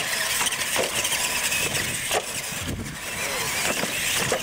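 Two electric R/C monster trucks racing on concrete, their motors whining with a wavering pitch and their tyres hissing on the pavement. Sharp knocks come as they hit and land off wooden jump ramps, with a heavy thud about three seconds in.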